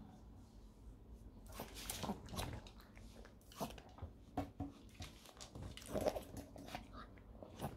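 A small dog crunching and chewing food, a run of irregular crunches and clicks starting about a second and a half in.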